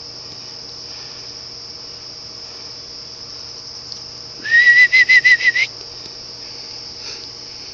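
Crickets chirping steadily in a high, continuous chorus. About four and a half seconds in, a louder whistle-like call rises and then pulses about six times over roughly a second.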